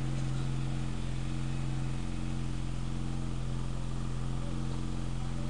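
Steady low hum with a faint hiss over it.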